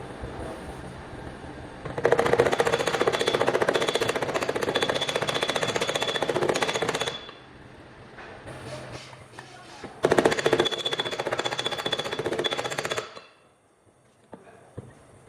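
A body-shop power tool working on metal panel in two bursts of fast rattling, one about five seconds long and a shorter one of about three seconds, each carrying a steady high whine.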